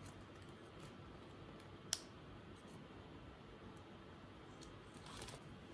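Quiet room tone with a single sharp click about two seconds in and a soft rustle near the end, from wrapped chocolates being handled in their plastic wrappers.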